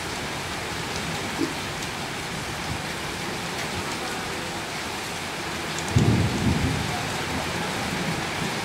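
Heavy rain falling steadily. About six seconds in, a low rumble rises over it and the sound grows a little louder.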